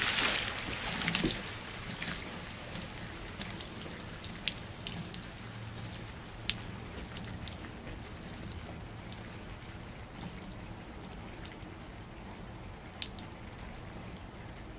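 Water sloshing in a brim-full garbage can as a large fireworks water shell is set in. The slosh dies down within about a second and a half, leaving scattered drips and small splashes as the shell bobs and wobbles upright.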